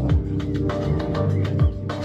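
Music with a steady beat and a bass line that slides down in pitch about once a second.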